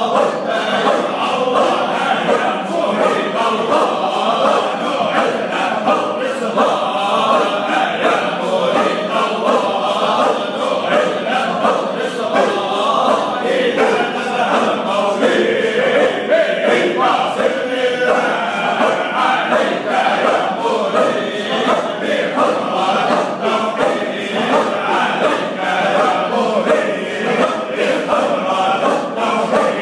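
A group of men chanting together in a Sufi hadra, many voices singing a continuous devotional chant.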